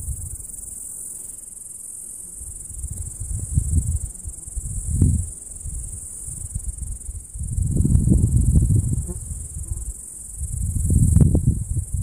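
Cicadas singing in a steady, high-pitched chorus, with low gusts of wind buffeting the microphone that are loudest about eight seconds in and again near the end.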